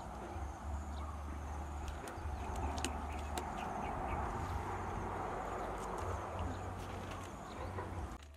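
Light clicks and taps of a hand arranging raw fish on a woven bamboo tray, over a steady outdoor rush with a low wind rumble on the microphone that comes and goes. The sound cuts off suddenly near the end.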